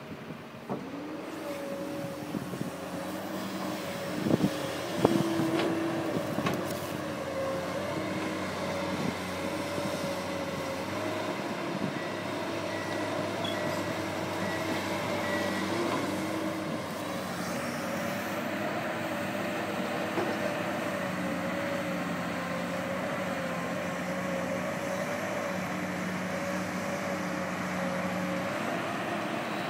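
Komatsu PC200-8 excavator's six-cylinder diesel engine running steadily, with a few sharp knocks about four to six seconds in.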